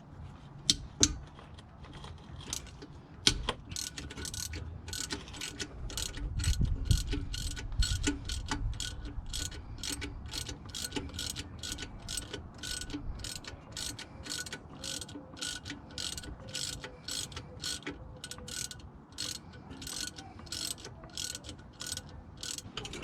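A socket ratchet being worked back and forth, clicking steadily about two to three times a second, with a few sharper knocks in the first few seconds.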